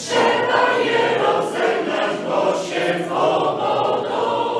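Mixed choir singing a Polish folk song, many voices together.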